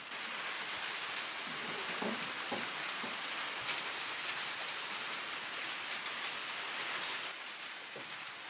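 Steady rain falling, an even hiss that eases a little near the end, with a thin steady high tone running through it.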